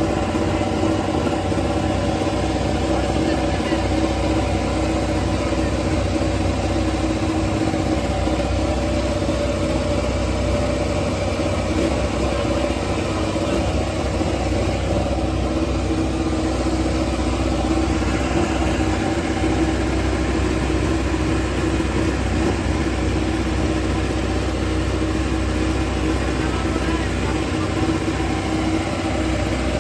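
Pramac Ducati Desmosedici MotoGP bike's 1000 cc V4 engine idling steadily.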